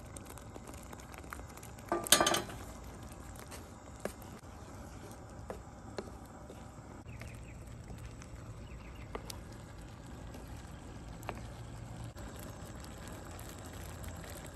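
Egg masala gravy quietly simmering in a pan, with a few faint scattered clicks and one short, loud clatter about two seconds in.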